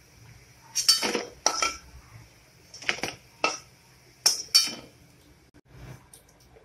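Metal spatula clinking and scraping against an aluminium kadai and a steel plate as fried lentil fritters are lifted out of the oil: about six sharp clinks, mostly in pairs, with quiet between them.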